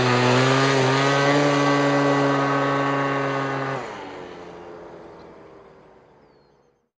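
Small two-stroke scooter engine revving up and holding a steady high-revving note. About four seconds in the pitch drops and the sound fades away as the scooter rides off.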